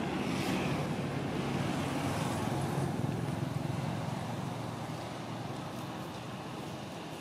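Low, steady rumble of road traffic, slowly fading away.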